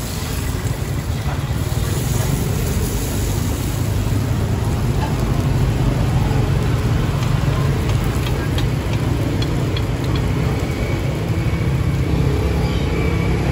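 Steady low rumble of street traffic, with a few light clicks about two-thirds of the way through.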